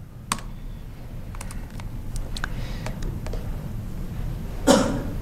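A few scattered keystrokes and clicks on a laptop keyboard over a steady low room hum, with one short vocal sound from a man near the end.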